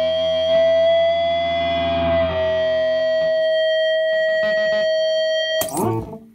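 Loud electric guitar played through distortion and effects pedals, held notes ringing on with a change about two seconds in, broken near the end by a sharp noisy burst that dies away.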